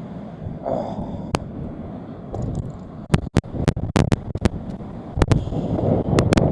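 Wind buffeting the microphone with a low rumble. From about halfway through there is an irregular run of sharp clicks and cracks.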